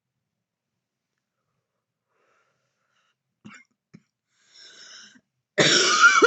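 A woman coughs loudly and suddenly near the end, after a few seconds of near silence, a couple of faint clicks and a faint breath.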